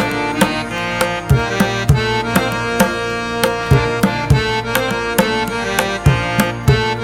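Background music: a melodic instrument playing sustained notes over hand-drum percussion with a steady beat.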